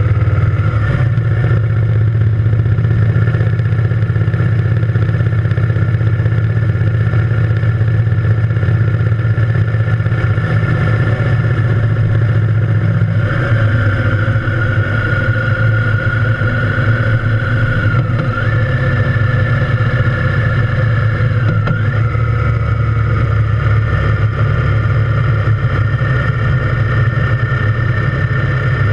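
Triumph Thunderbird Storm's parallel-twin engine running steadily under way. Its note shifts in pitch about halfway through and twice more a few seconds later.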